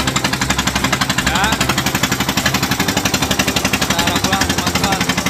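Fishing boat's engine running steadily under way, with a fast, even chugging beat.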